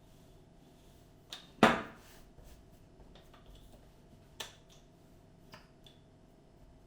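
Rolling pin knocking on a worktop while dough is rolled out: one loud knock about one and a half seconds in, then a few faint taps and clicks.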